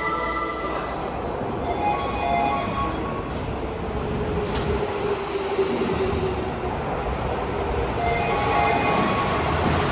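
Platform screen door closing chime, short multi-note tonal phrases, heard just after the start, again about two seconds in and again near the end. Under it runs the steady noise of a subway train in the station.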